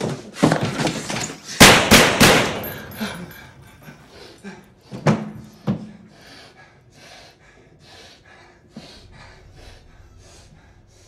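Three loud, sharp bangs in quick succession about a second and a half in, dying away over the next two seconds, followed by two softer knocks and then a run of faint, evenly spaced taps.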